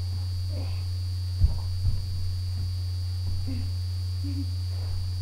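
Steady low electrical mains hum, with two dull thumps about a second and a half in as children shift their bodies on the floor, and a few faint short vocal sounds later.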